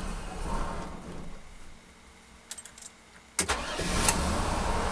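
Chevrolet 454 big-block V8 idling, then dying away about a second and a half in; after a few faint clicks it starts again with a sudden loud burst and runs on. The stalling is what the owner puts down to a dying fuel pump.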